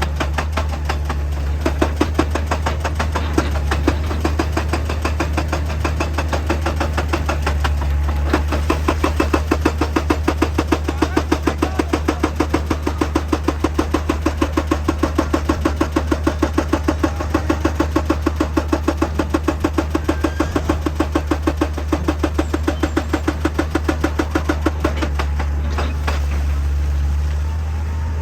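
Heavy diesel machinery running with a steady low drone under a fast, even hammering of several blows a second, like a rock drill or hydraulic breaker at work; the hammering stops near the end while the engine keeps running.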